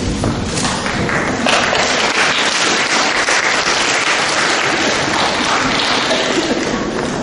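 Audience applauding: dense, steady clapping that grows fuller about a second and a half in.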